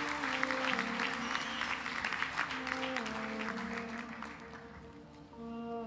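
Audience of graduates applauding, the clapping thinning and dying away about four to five seconds in. Soft background music of held notes that step in pitch plays under it.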